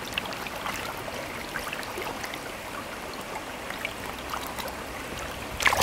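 Shallow stream water babbling and trickling close by, with small splashes from a rainbow trout's tail as it is held in the current, and one louder splash near the end.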